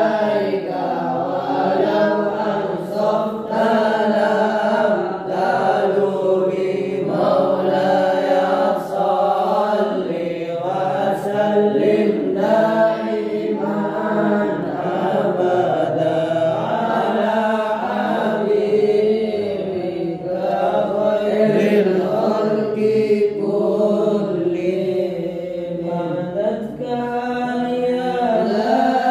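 A group of men and boys chanting sholawat, Arabic devotional verses in praise of the Prophet, together from their books in a continuous melodic chant.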